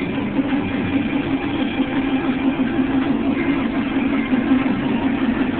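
1964 Bombardier snowcat's engine running steadily at low speed as the machine creeps forward.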